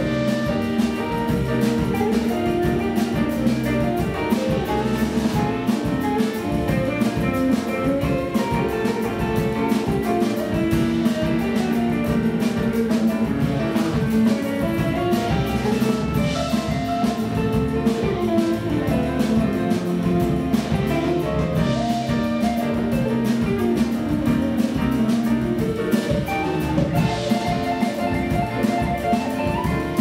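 Live jazz band playing an instrumental passage without vocals: electric guitar over double bass and drum kit.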